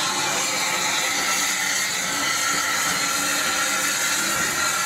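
Steady steam hiss from a small saddle-tank steam locomotive standing or moving slowly.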